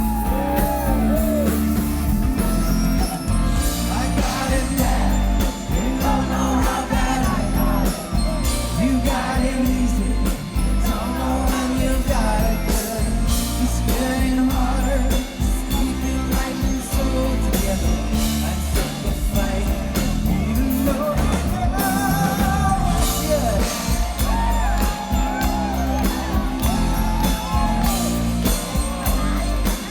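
Live pop-rock band playing at full volume, with a male lead vocal over a steady drumbeat and heavy bass.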